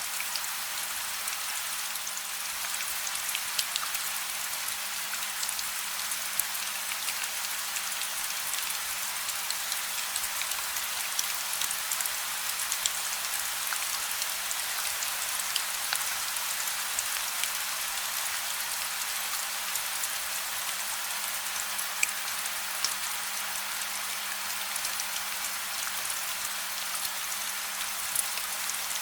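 Steady rain: an even hiss full of small individual drop ticks, with no thunder. A faint low steady hum runs underneath.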